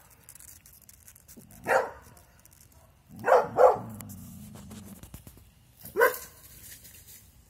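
Dog barking in short single barks: one about two seconds in, a quick pair a little past three seconds, and one more about six seconds in.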